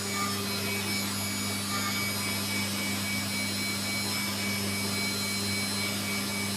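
CNC milling machine running with a steady electric hum and a faint high whine.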